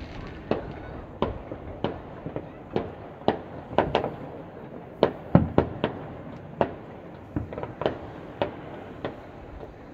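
Distant fireworks and firecrackers going off across a city, a string of sharp bangs at irregular intervals, about two a second. The loudest few bangs come together about five seconds in.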